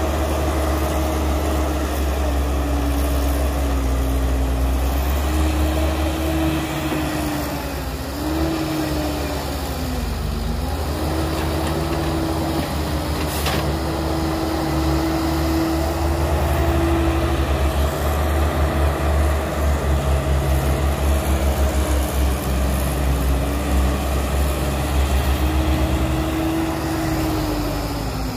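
Heavy diesel engine of the earthmoving machinery running with a low rumble, its pitch dipping and recovering several times as the load changes. In the second half the sound takes on a rhythmic pulsing.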